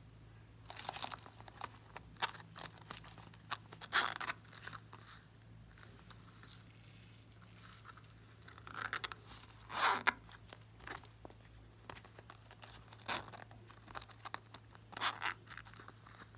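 Small zippered plastic cases handled over a glass dish: scattered crinkly scrapes and clicks, the loudest about four and ten seconds in, as small beads and glitter are shaken out of them.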